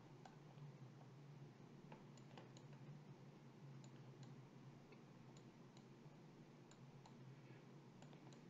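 Near silence with faint, irregular clicks of a computer mouse, over a low steady hum.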